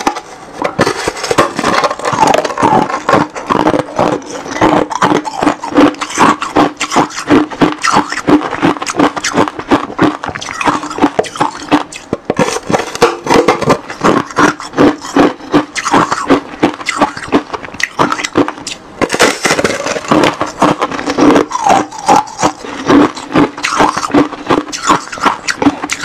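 A slab of freezer frost ice being bitten and chewed close to the microphone: a rapid run of loud, crisp crunches, several a second.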